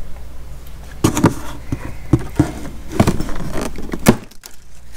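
Plastic packing straps around a cardboard box being cut and handled: a run of sharp clicks and knocks, the loudest about four seconds in.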